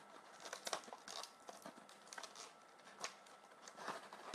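Faint rustling and a scattering of light clicks from handling small plastic parts and their plastic blister packaging.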